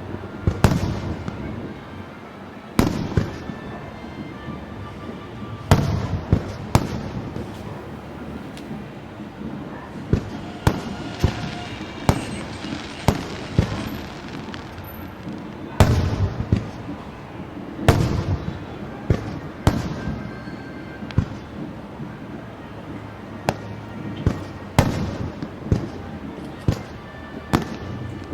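Fireworks display: a rapid, irregular string of sharp bangs from bursting shells, each with an echoing rumble, the biggest bangs about a second, three seconds, six seconds and sixteen seconds in.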